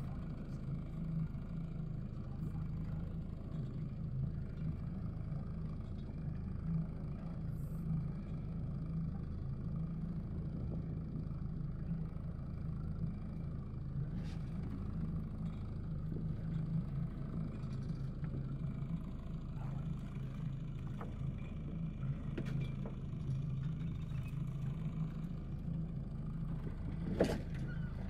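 Boat engine running steadily, a constant low hum, with one sharp knock near the end.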